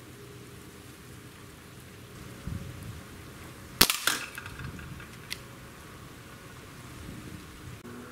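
A single shot from a 6-inch Dan Wesson 715 .177 CO2 pellet revolver, a sharp crack about four seconds in, followed at once by a second strike and a short ringing.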